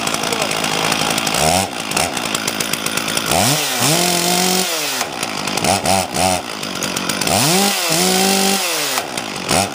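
Two-stroke chainsaw idling after a cold start and being revved: short throttle blips and two full revs, each held for about a second before dropping back to idle, as the saw is warmed up and checked that it runs properly.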